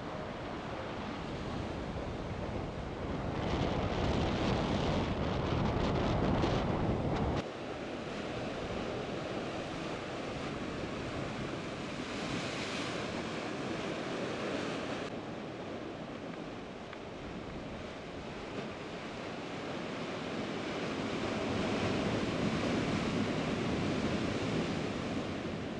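Sea surf breaking and washing over a rocky shore, rising and falling with the waves, with wind rumbling on the microphone. A louder stretch with a deep rumble starts about three seconds in and stops suddenly a few seconds later.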